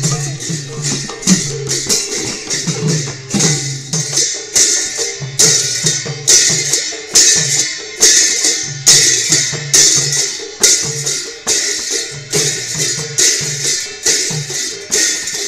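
Assamese dhol barrel drums and large hand cymbals played together in a steady processional rhythm. The cymbals clash loudly at an even beat, a little more than once a second, over the drums' low pattern.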